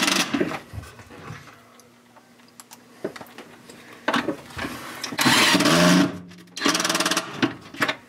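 Cordless drill driving pocket-hole screws into a wooden cleat, in three runs of motor whine: one ending about half a second in, a longer one from about four to six seconds, and a short one near the end. Quieter handling sounds fall between the runs.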